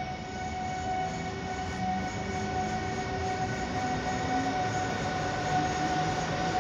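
Newag Griffin EU160 electric locomotive hauling a passenger train as it rolls past, its drive giving a steady high whine over the low rumble of the train, growing slowly louder as it comes nearer.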